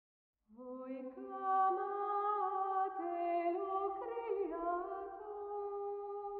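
Slow vocal music, singing in long held notes that step from one pitch to the next, starting about half a second in.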